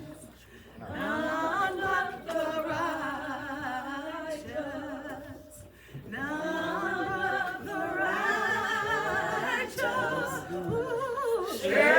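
Group of voices singing a cappella, in two long phrases with a brief break about halfway through.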